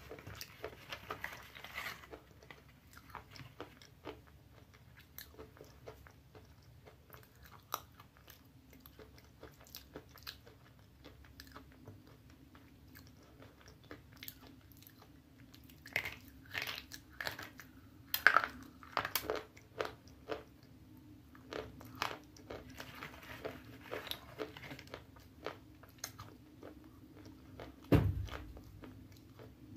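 Close-up biting and chewing of a slate pencil: crisp, irregular crunches and clicks, with one loud bite near the end.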